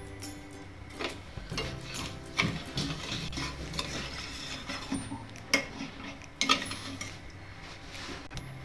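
A metal spoon stirring sugar and water in a small stainless-steel saucepan, with irregular scrapes and clinks against the pan. The sugar is being dissolved for a sugar syrup.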